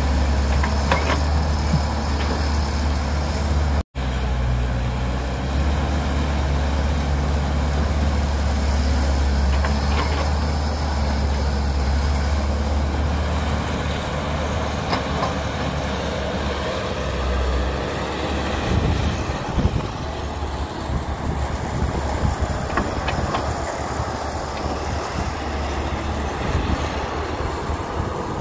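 Diesel engine of a Cat hydraulic excavator running under load as it works its bucket, dumping soil into a dump truck and swinging back to dig, with the truck's engine running alongside. A steady low drone with a few faint clatters; the sound cuts out for an instant about four seconds in, and the low rumble turns uneven in the second half.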